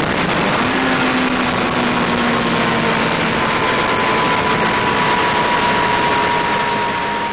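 Onboard sound of a sport motorcycle at very high speed: heavy wind rush over a steady engine note. The engine pitch eases slightly lower as the bike slows from about 220 km/h.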